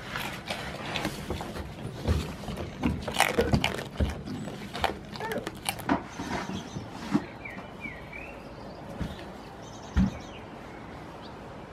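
Goats moving about a straw-bedded shed: irregular clatter and knocks of hooves on the wooden floor and rustling straw, with a few louder thumps, the loudest about ten seconds in.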